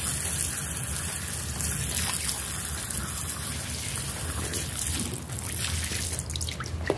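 Soapy water trickling and running on a wet carpet sample, heard as a steady hiss, with a sharp short knock near the end.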